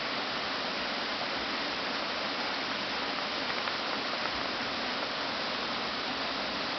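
Steady rushing of a rocky stream, an even wash of water noise that holds at one level throughout.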